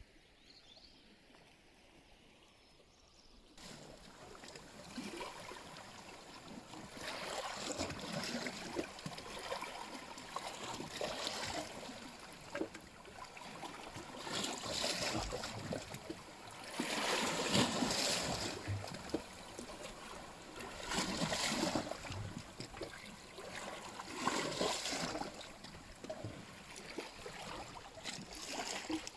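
Small sea waves washing and splashing at the water's edge, swelling and falling back every three to four seconds; it begins a few seconds in after near quiet.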